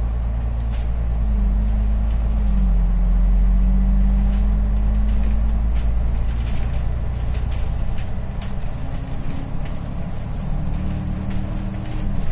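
Bus engine and drivetrain heard from inside the cabin: a steady low rumble with a humming tone that drops in pitch about two seconds in and a higher tone that rises slowly in the last few seconds, with light clicks and rattles throughout.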